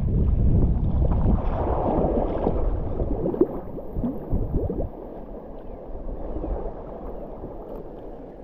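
Kayak paddle strokes splashing and water gurgling beside the boat on flat water, heard close to the water's surface. A low wind rumble on the microphone dominates the first few seconds and then fades, leaving separate splashes and drips.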